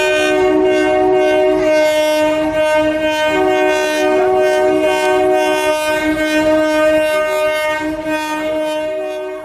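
A train horn blowing one long, sustained chord of several notes, with the lower notes cutting in and out, over train running noise. It fades out near the end.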